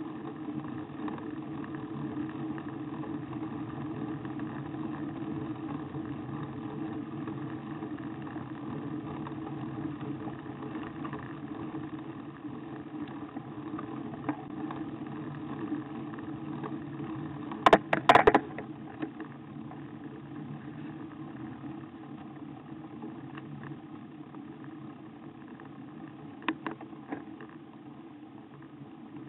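Steady riding noise picked up by a camera on a road bike's handlebars: a low hum and rumble of tyres on tarmac and rushing air. A quick cluster of sharp rattling knocks about 18 seconds in, and two smaller knocks near the end, as from the bike or mount jolting on the road.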